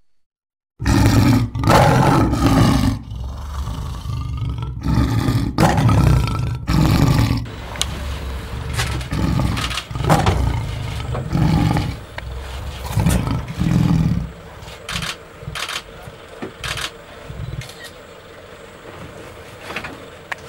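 An angry lion roaring and growling in a series of loud, deep bursts, starting about a second in. After about fourteen seconds it dies down to fainter, scattered sounds.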